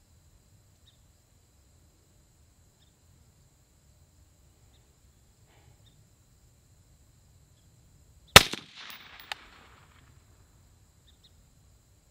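A single rifle shot from a suppressed AR-15 firing .223 55-grain ammunition, about eight seconds in: a sharp crack with a short echoing tail, and a light click about a second after it.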